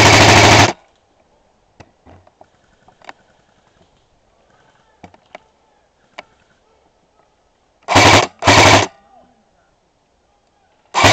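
Airsoft gun firing short full-auto bursts close by: a very loud burst that stops under a second in, two quick bursts one after the other about 8 seconds in, and another near the end. Faint scattered clicks fall in the quiet between them.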